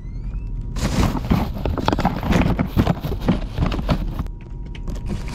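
Groceries being packed into a portable fridge: plastic packaging and bags crinkling and rustling, with many small knocks and clicks as containers are set down on the fridge shelves, pausing briefly a little after four seconds in.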